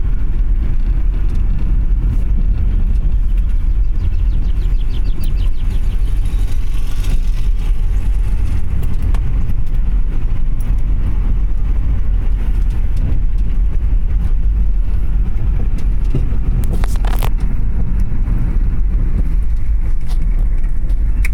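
Steady low rumble of a Honda car's tyres and engine, heard from inside the cabin while it drives at a constant speed.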